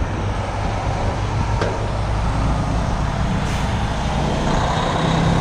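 Semi-truck diesel engine running close by, a steady low rumble.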